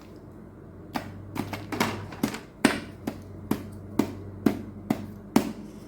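A run of about ten sharp taps or knocks on a hard surface, a little under two a second, starting about a second in and stopping shortly before the end.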